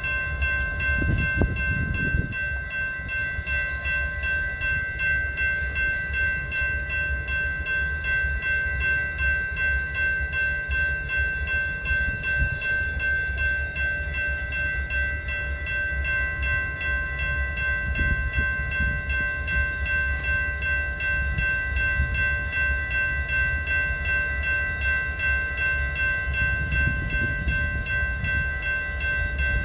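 Train running: a steady low rumble that swells and eases, with several steady high tones held unchanged throughout.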